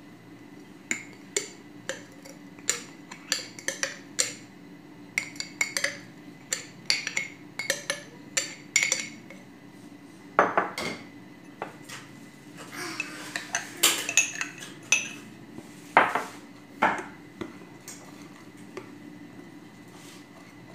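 Metal spoon clinking and scraping against a glass mixing bowl in quick, irregular taps, as flour is stirred together with wet ingredients.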